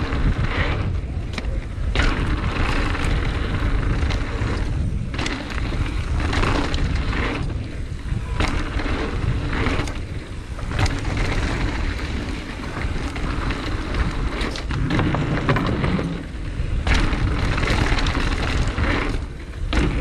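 Mountain bike ridden fast over dirt jumps and a wooded dirt trail: steady wind noise on the bike-mounted camera's microphone and tyres rolling over dirt, with frequent sharp clattering knocks from the bike over bumps and landings.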